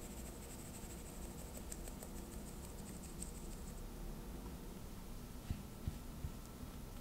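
Hand-held fine-mesh sieve shaken over a glass mixing bowl, a rhythmic scratchy rasp of flour sifting through the mesh that stops about four seconds in. Then a few soft knocks of a spatula against the glass bowl as the flour is folded in.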